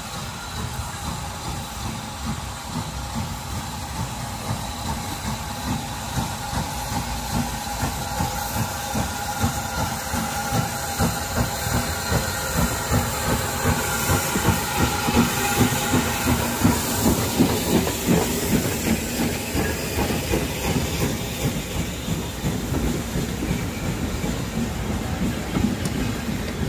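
Brookes No. 1, a 0-6-0 saddle tank industrial steam locomotive, working a train out of a tunnel and past at close range: rapid steady chuffing with a hiss of steam, growing louder as it nears and loudest about two thirds of the way through. Then the carriage and wagon wheels rattle by over the rail joints.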